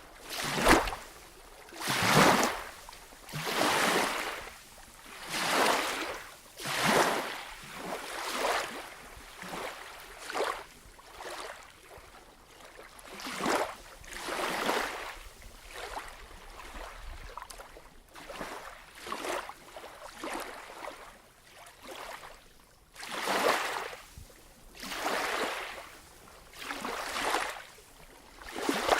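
A swimmer's strokes splashing through water, one rhythmic swishing surge about every one and a half seconds. The splashes are softer through the middle and stronger again near the end.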